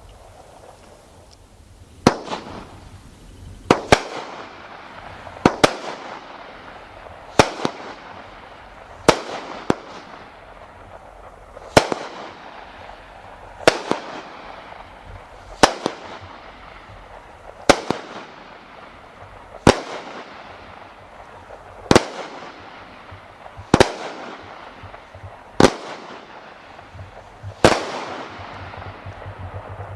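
A 200 gram consumer fireworks cake firing, each aerial break a sharp bang followed by a fading tail. A steady series of about fourteen shots, one roughly every two seconds, starts about two seconds in.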